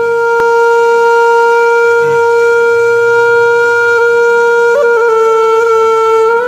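Background music: a single loud note held on a wind instrument, with a small wobble in pitch about five seconds in, over a faint low backing.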